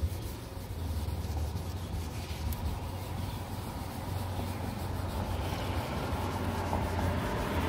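Headlight restoration wipe rubbing over an oxidized plastic headlight lens, a steady scrubbing, with a low rumble underneath.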